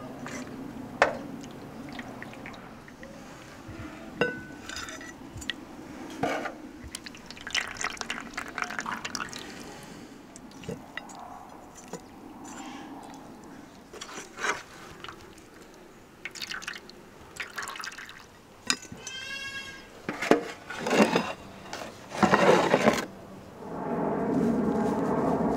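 Liquid being poured and filling a vessel, the pitch rising as it fills, among scattered clinks and knocks.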